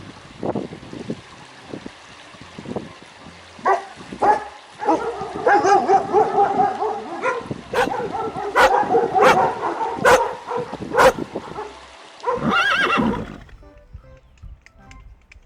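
Horse whinnying: a long, wavering whinny about five seconds in and a shorter one near the end, with several sharp knocks in between.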